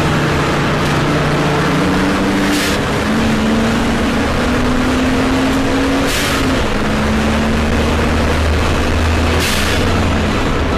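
Turbocharged Holden VL Commodore race car's engine heard from inside the cockpit, running hard at racing speed. Its pitch climbs through the first half, drops, then holds steady. Three short bursts of hiss cut through, spaced a few seconds apart.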